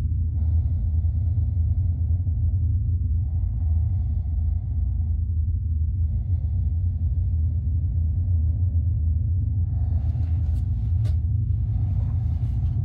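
Deep, steady low rumble of a horror-film drone, with fainter hissing swells every few seconds. A few sharp clicks come near the end.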